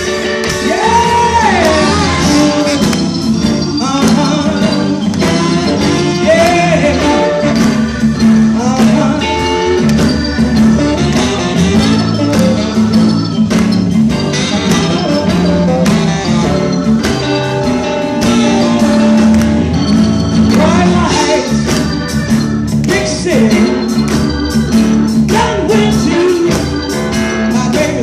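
Live blues band playing: a woman sings into a microphone over electric guitar and drums.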